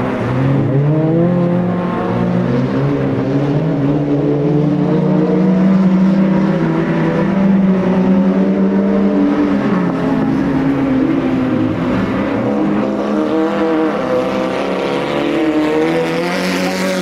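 Several race cars' engines running hard around a track, their pitches overlapping and repeatedly rising and falling as they rev up and ease off.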